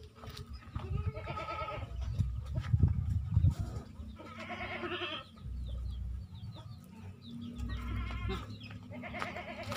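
Young goat kid bleating four times, each bleat about a second long and wavering. A couple of loud low bumps come between the first and second bleats.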